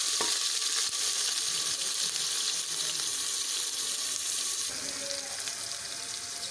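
Sliced onions and ginger-garlic paste sizzling in hot oil in a pressure-cooker pot as they are stir-fried with a ladle. It is a steady hiss that eases slightly about two-thirds of the way in.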